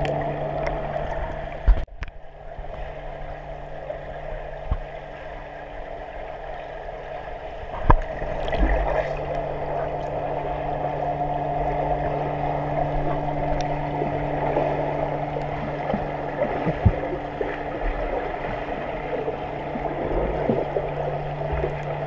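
Muffled underwater pool sound: swimmers' water noise with a steady low hum, and a few sharp knocks.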